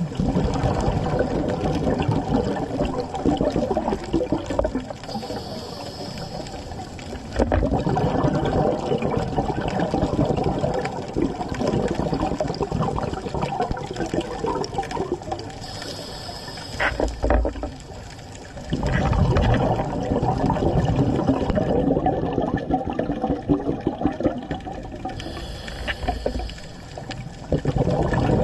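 Water bubbling and churning in long surges a few seconds apart, with quieter stretches between them.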